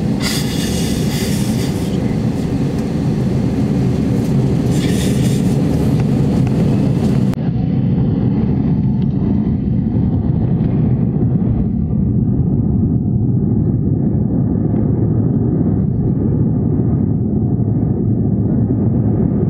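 Steady rumble of an Airbus A320-family airliner's jet engines and airframe, heard from inside the cabin as the aircraft taxis toward the runway.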